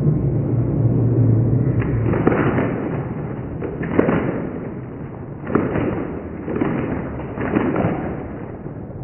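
Ballpark crowd noise in the stands during an at-bat, a steady din with several sharp cracks standing out, the sharpest about four seconds in.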